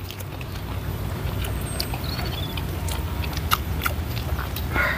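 Close-miked chewing of a mouthful of rice and fish: a steady dull low rumble with scattered small clicks and smacks. A rooster starts crowing at the very end.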